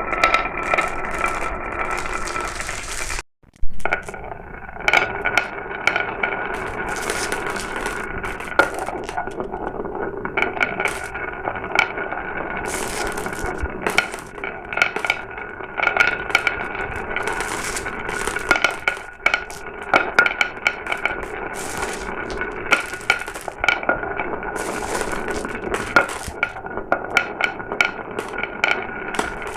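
Glass marbles rolling down a marble run track: a continuous rolling rumble with frequent sharp clicks and clinks as the marbles knock against the track and each other. The sound drops out briefly about three seconds in.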